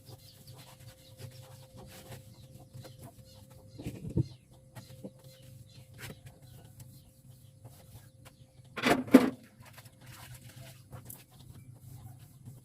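Small clicks and scrapes of handling and wiping over a steady low hum from the old Sharp refrigerator, which is running. A chicken clucks loudly and briefly about nine seconds in.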